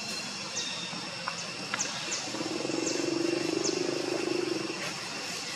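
Outdoor forest ambience: a steady high-pitched drone with short falling chirps repeating every half second or so, and a low steady hum that rises for about two seconds in the middle.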